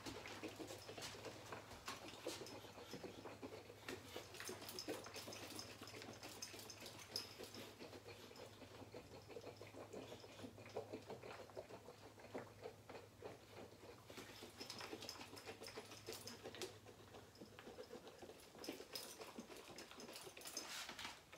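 Honey, water and tea being shaken in a one-gallon glass carboy to dissolve the honey for mead: faint, continuous sloshing and a patter of small splashes in the jug.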